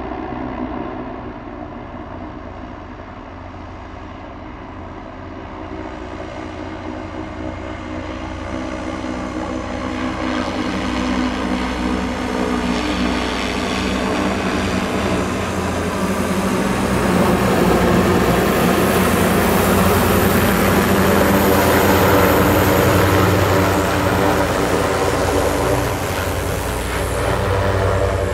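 Zeppelin NT airship's propeller engines running as it comes in to land, a layered engine hum that grows steadily louder over about a dozen seconds, then holds and eases slightly near the end.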